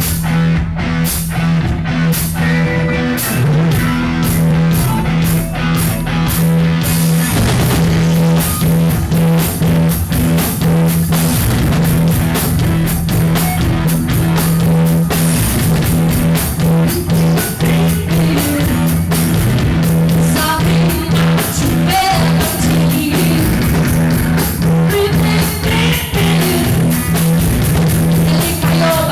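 Live rock band playing, with electric guitar and drum kit. The first seven seconds or so are steady, evenly spaced drum hits over a held low note, then the full band comes in.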